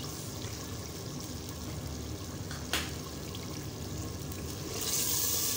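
Oil-topped chicken korma sizzling in a clay handi, with a single sharp knock about two and a half seconds in. The sizzling grows louder near the end as the curry is stirred with a wooden spoon.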